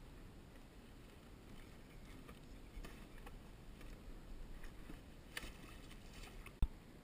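Faint clicks and knocks of gear being handled against a plastic kayak, with one sharp knock near the end.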